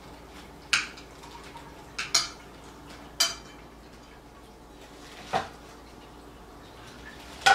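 A ceramic dinner plate knocking on a wooden chopping board as it is pressed down on a plastic-covered ball of dough to flatten it into a paratha: about six sharp, separate clacks spread over several seconds.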